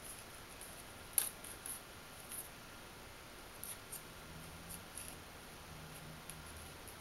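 Faint, scattered light clicks and scratches from a young kitten's claws and paws moving about.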